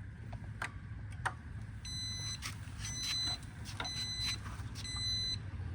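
Jazzy power wheelchair's joystick controller beeping out a fault code: short, high, evenly spaced beeps about one a second, starting about two seconds in, over a low steady hum and scattered clicks.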